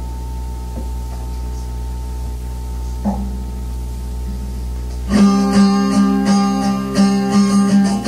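Steady low hum from a cassette tape playing between songs, with a small click about three seconds in. About five seconds in, guitar music starts abruptly: the next song on the home cassette recording begins.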